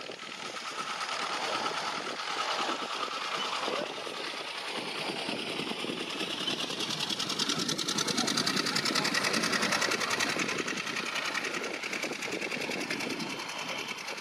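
De Havilland Venom single-jet fighter flying past in a display: a broad jet rush with a fast, even rattling flutter, growing louder to a peak about eight to ten seconds in, then easing off.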